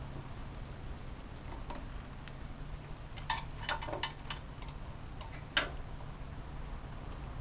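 Light, scattered clicks and taps of small tools and parts being handled at a workbench, bunched between about three and six seconds in, over a steady low hum.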